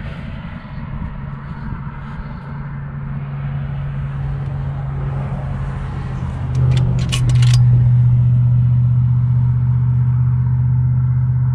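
A motor vehicle's engine running steadily with a low hum that grows louder about two-thirds of the way through. A quick run of sharp clicks comes at the same moment.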